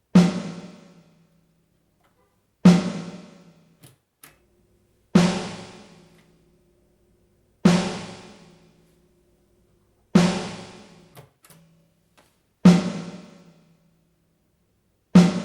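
A sampled Ludwig snare drum hit repeating about every two and a half seconds, seven strikes in all, each followed by a short decaying tail from a Lexicon PCM60 digital reverb on its plate setting. A few faint clicks fall between some of the hits.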